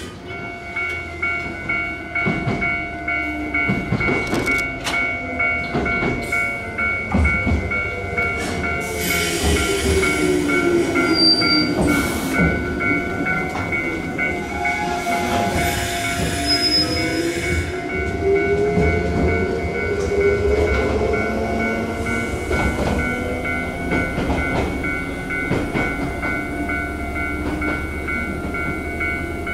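Echizen Railway electric train: a motor whine falls in pitch as a train slows, then a whine rises as a train pulls away, with wheels clicking over rail joints. A steady high tone sounds throughout.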